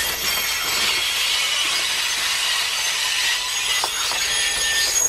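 Steel wheels of heavyweight Pullman passenger cars rolling over the rails on a curve: a steady rushing grind with thin high-pitched squeals from the wheel flanges.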